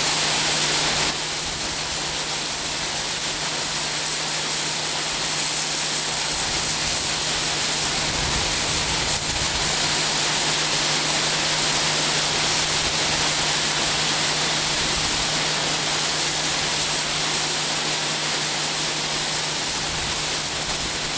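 Heavy farm machinery running steadily in the field: a constant engine hum under a loud rushing noise, with a slight change in level about a second in.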